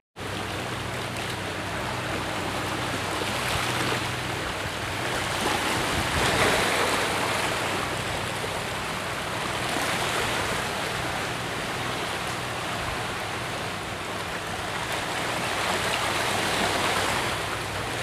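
Steady rushing noise that swells and eases every few seconds, starting abruptly at a cut.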